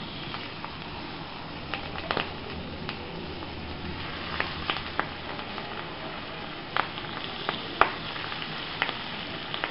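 Butter sizzling on a hot sizzler plate as cabbage leaves are laid on it: a steady hiss broken by scattered sharp pops, the loudest about seven and eight seconds in.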